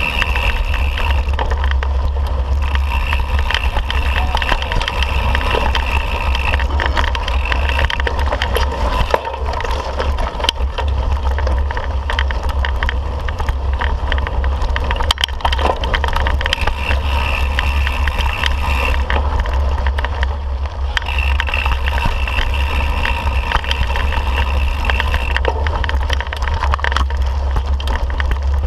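Mountain bike riding over a rough dirt trail, heard from the moving bike: a constant wind rumble on the microphone with tyre noise on dirt and frequent rattles and knocks as the bike goes over bumps and rocks.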